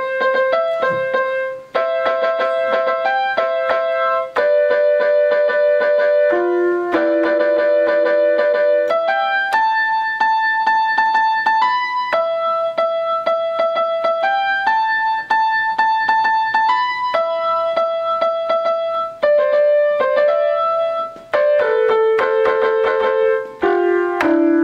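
Electronic keyboard playing a simple melody of held, steady notes.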